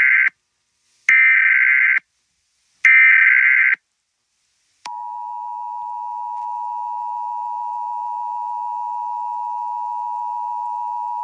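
Emergency Alert System tones: three bursts of warbling data tones, each just under a second with a second of silence between, the first already under way. About five seconds in, the two-tone attention signal starts, a steady dual-pitched tone that holds on. Together they mark the start of an emergency alert message.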